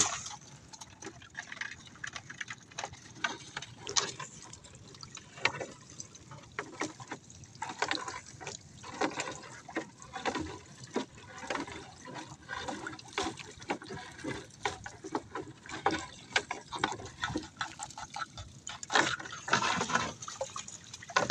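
Water splashing and dripping as collapsible net crab traps are hauled up out of the sea over the side of a small boat, with many short, irregular splashes and drips.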